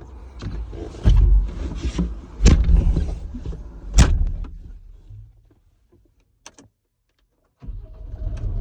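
Knocks and clunks against a low rumble inside a skid steer cab, three of them sharp. The sound then drops away almost to silence, and a steady low machine hum comes back near the end.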